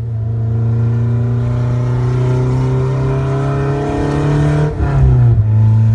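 Car engine running while driving, heard from inside the car. Its note climbs slowly, dips briefly about five seconds in, then settles steady.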